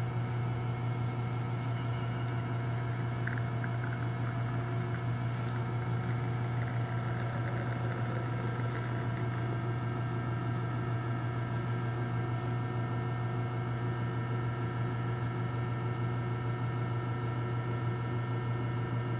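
Rocket R58 espresso machine's rotary pump running with a steady low hum while it pushes water through the puck during an espresso extraction.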